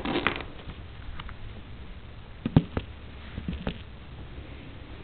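Small pet's dry coughing: a short burst at the start, two sharp coughs about two and a half seconds in and a couple of fainter ones later. The cough does not seem productive.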